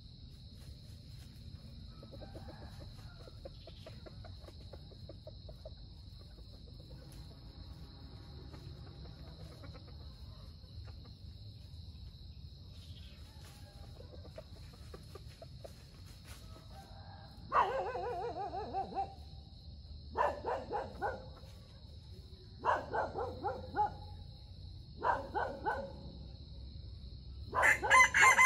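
Red junglefowl calling: from about two-thirds of the way in, five loud bursts a couple of seconds apart, each a quick run of notes, the last and loudest near the end. A steady high insect drone runs underneath.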